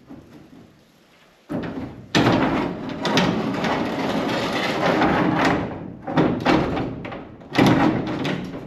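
Renault Estafette's sliding side door being worked along its rail: a thump, a long rolling scrape lasting about three seconds, then a few clunks, the loudest near the end.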